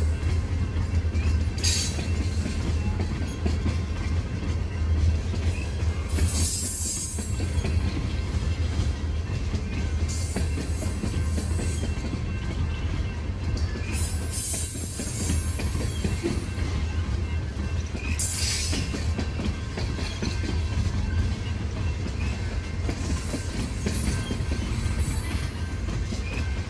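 Loaded coal hopper cars of a freight train rolling past: a steady low rumble of wheels on rail, with brief high-pitched wheel squeals several times.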